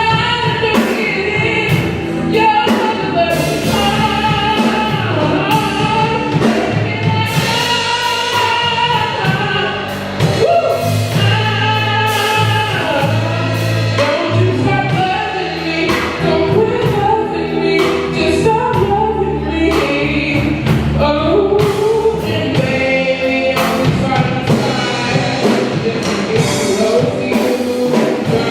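A live band playing, with singers over bass and drums.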